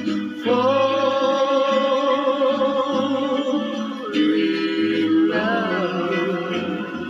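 A song: a voice holds one long note, drops to a lower held note about four seconds in, then slides through several notes.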